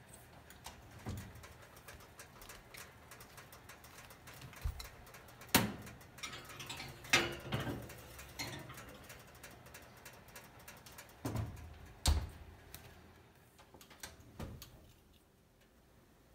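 Oven door, wire rack and metal muffin tin being handled: a string of scattered sharp clanks and knocks, a few of them much louder than the rest, as the tin goes into and comes out of the oven.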